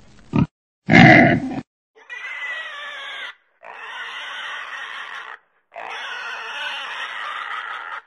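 Domestic pig calling: a short, loud call about a second in, then three longer calls of roughly two seconds each with brief pauses between them.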